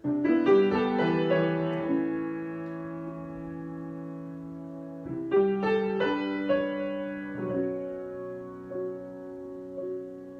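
Solo piano improvisation. A chord is struck and left to ring, fading slowly. About five seconds in a second cluster of notes is played, followed by a few single notes over the sustained chord.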